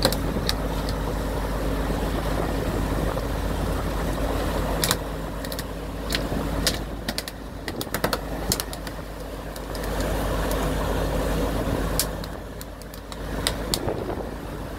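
Sport-fishing boat's engines droning steadily under the rush of wake and wind, with a scatter of sharp knocks and taps on the deck as a freshly landed fish is handled, bunched in the middle and again near the end.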